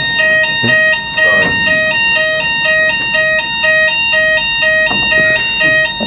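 Building fire alarm sounding continuously: a loud electronic tone that switches rapidly back and forth between two pitches, over a steady higher tone.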